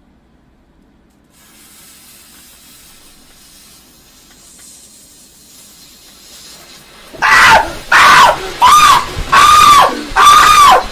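A firework's lit fuse hissing faintly. About seven seconds in, the firework goes off indoors with a loud rushing spray, and a man screams again and again: about six short screams.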